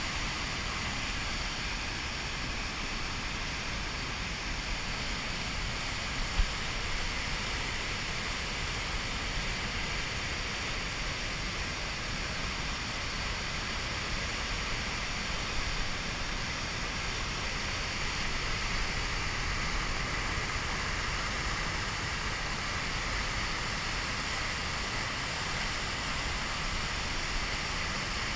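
Whitewater rapids rushing over and around boulders: a steady, unbroken noise of churning water. A brief knock about six seconds in.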